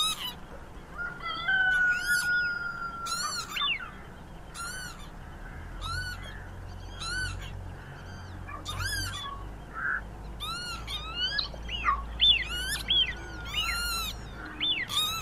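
Birds calling: short, sharp chirps about once a second, mixed with gliding whistled notes and one long steady whistle near the start. A faint low rumble runs underneath in the second half.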